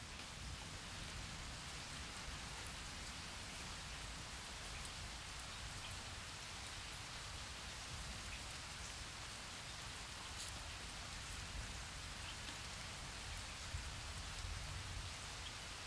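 Steady rain falling: an even hiss with scattered small drop ticks and a low rumble underneath.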